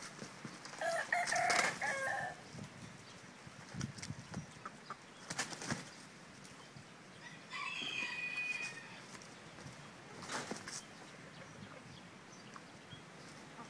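Two fighting roosters, a Đông Tảo and a native Vietnamese gamecock, with wings flapping and sharp scuffling strikes. A short pitched rooster call comes about a second in and another around eight seconds in.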